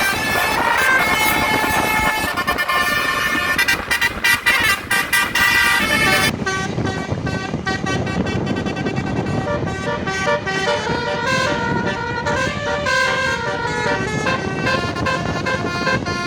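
Telolet basuri musical bus horns playing a tune, several pitched horns sounding together and jumping from note to note. About six seconds in the sound changes abruptly to another horn set, with a bus engine rumbling underneath.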